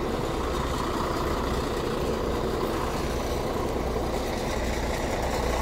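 Diesel engine of a ZSSK class 812 railcar idling steadily while the railcar stands with its doors open.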